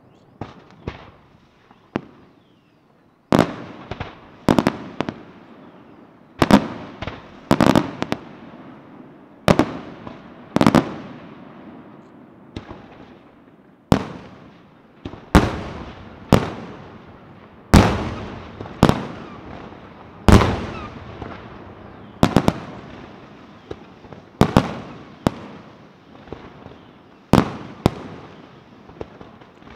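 Fireworks display, with bursts going off one after another: a few faint pops at first, then from about three seconds in a steady run of loud bangs about a second apart, each followed by a rumbling echo.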